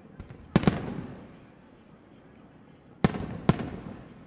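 Aerial firework shells going off: two sharp bangs close together about half a second in, then two more about three seconds in, each pair trailing off in a rolling echo.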